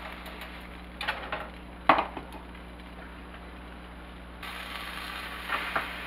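Buns being handled in a hot nonstick skillet: a few knocks and clicks, the sharpest about two seconds in, and two more near the end as the buns are lifted. About four seconds in, a steady low hiss of butter sizzling comes up.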